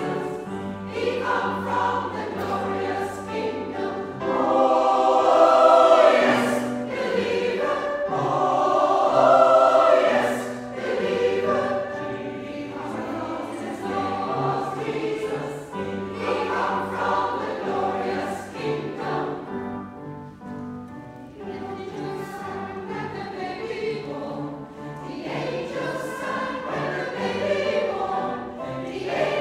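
Mixed choir of men's and women's voices singing a Christmas carol, swelling louder about six and ten seconds in and falling softer around twenty seconds.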